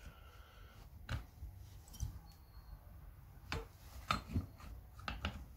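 Scattered faint clicks and light knocks of Stihl 028 AV chainsaw parts being handled and fitted while the chain brake is put together, coming more often in the second half.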